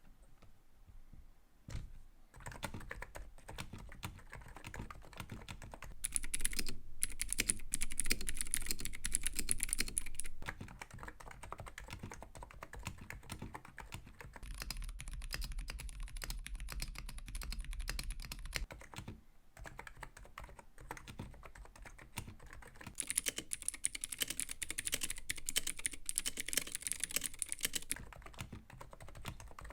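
Continuous fast typing on computer keyboards, a dense run of key clicks in several passages. Two louder, brighter-clicking stretches, about a fifth of the way in and again near the end, alternate with softer, duller ones, with brief pauses between.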